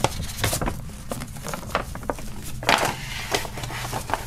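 A folded paper poster being unfolded and smoothed flat by hand: a string of short paper crackles and light taps, with a longer rustle a little under three seconds in.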